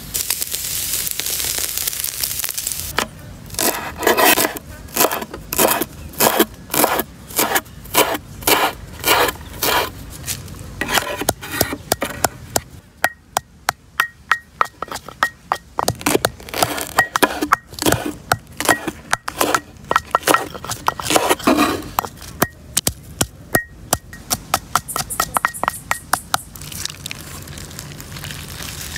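A long series of sharp knocks or slaps in a rough rhythm of about two a second, giving way about halfway through to quicker, lighter clicks. A steady hiss fills the first few seconds.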